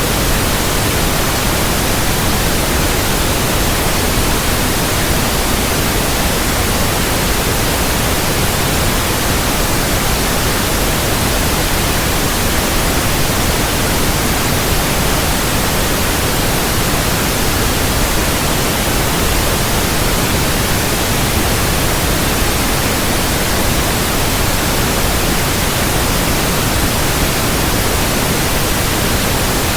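Steady white noise, an even, unchanging hiss spread across all pitches from low to high, played as a sleep sound for calming a baby.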